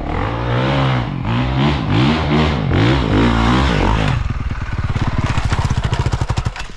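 Honda CRF450 dirt bike's single-cylinder four-stroke engine revving up and down repeatedly on a steep dirt climb. About four seconds in it drops to a fast, even pulsing idle as the bike goes over.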